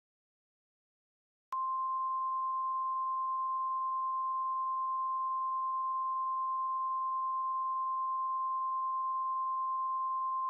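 NOAA Weather Radio 1050 Hz warning alarm tone: one steady high-pitched tone that starts with a click about a second and a half in and holds unchanged for about nine seconds. It signals that an emergency weather alert message follows.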